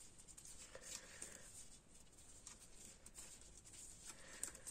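Near silence, with faint scattered ticks and rubbing of knitting needles working wool yarn.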